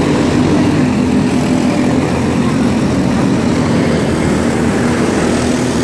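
Engines of small open-wheel microstock race cars running steadily as they circle the dirt track.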